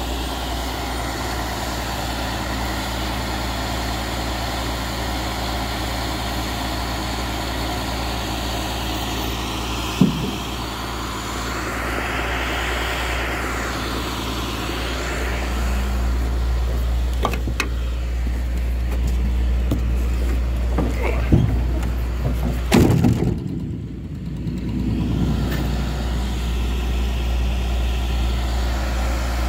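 Truck engine idling with a steady low hum. There is a sharp click about a third of the way in and a few knocks about two-thirds through.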